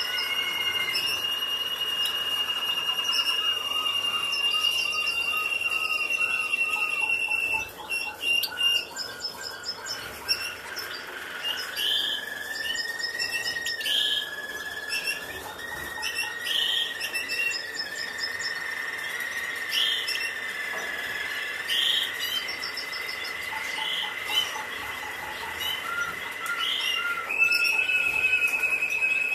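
Caged European goldfinches calling: long, high, nearly steady trills run under repeated quick chirps and short higher calls.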